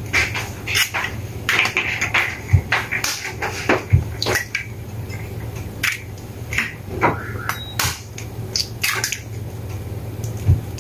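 Eggs being cracked against the rim of a ceramic plate and broken open: a string of sharp taps and clicks, with a few heavier knocks, over a steady low hum.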